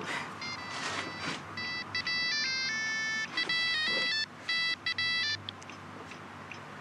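Mobile phone ringing: a short electronic ringtone melody of clean beeping notes, its phrase repeated several times. It starts about half a second in and cuts off suddenly about five and a half seconds in.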